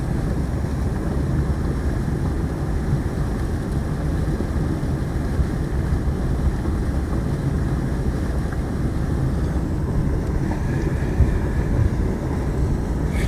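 Wind blowing across the microphone: a steady low rushing noise with no break.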